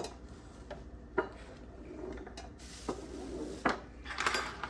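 Kitchen clatter: a few sharp knocks and clinks of utensils and dishes on a counter, with a short burst of scraping and clattering near the end.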